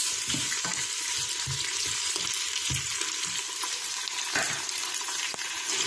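Sliced onions, garlic and tomato sizzling steadily in oil in the inner pot of an electric pressure cooker, stirred and scraped with a plastic spoon. A single sharp click comes about three-quarters of the way through.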